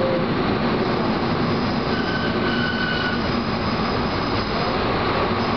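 Chichibu Railway electric train running along the track, heard from the front cab as a steady rumble, with a brief high squeal about two seconds in that lasts around a second.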